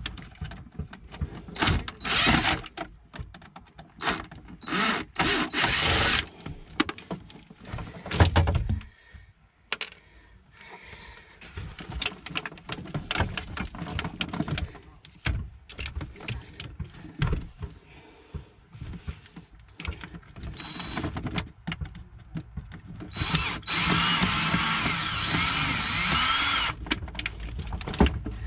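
Cordless drill/driver backing out screws in short runs, with clattering and handling noise between them. Near the end comes one longer run of about three seconds with a steady motor whine.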